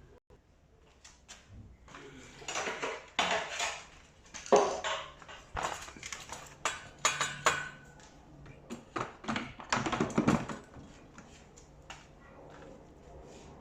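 Metal tumble dryer parts being handled during assembly: irregular clattering, knocks and scraping rattles, densest in the middle and loudest about four and a half seconds in.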